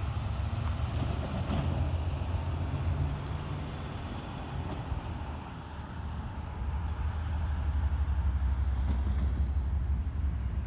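A pickup truck drives past with its engine running, followed by a steady low rumble that dips and then grows louder in the second half.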